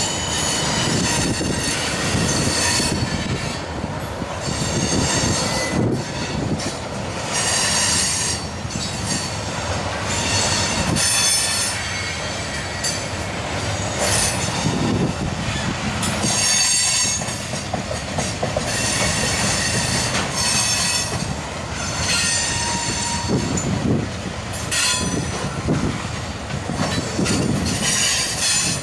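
Freight train cars (covered hoppers and tank cars) rolling past with a steady rumble and clatter of wheels on rail. High-pitched wheel squeal comes and goes repeatedly every couple of seconds.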